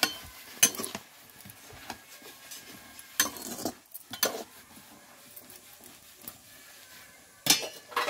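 Long flat metal spatula stirring and scraping in a metal cooking pot, striking it with a few separate sharp clinks and knocks: a cluster of them about three seconds in and another near the end.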